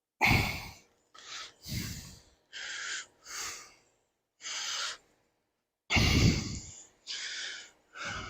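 A person breathing close to the microphone: a run of short, audible breaths, about nine in a row, with silence between them.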